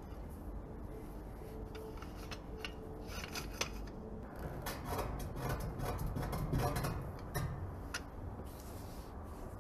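Light metallic clicks and rubbing from handling pliers with a shop rag, in scattered bursts.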